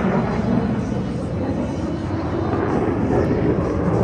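Jet aircraft engines running, a steady low rumble with no sharp changes.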